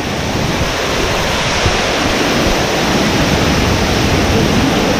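Waterfall pouring, heard up close: a loud, steady rush of falling water.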